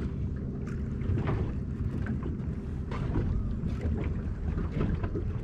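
A small fishing boat's engine running with a steady low drone, with short hissy gusts of wind on the microphone over it.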